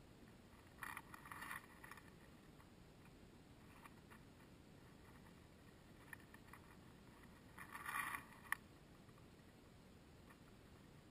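Dry hay rustling in two short bursts as a rabbit noses and pulls at it, with a few faint ticks between and a sharp click just after the second burst.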